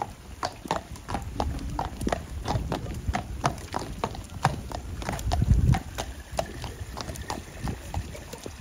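Friesian horse's hooves clip-clopping at a steady walk on a wet concrete yard. There is a brief low rumble about five seconds in.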